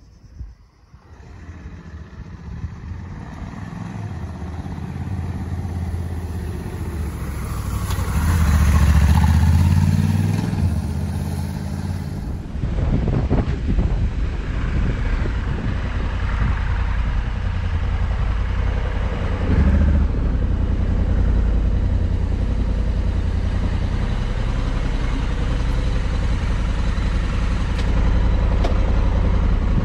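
Honda Africa Twin's parallel-twin engine pulling at low speed up a steep climb under its DCT automatic gearbox. It builds up over the first few seconds and is loudest about eight to eleven seconds in.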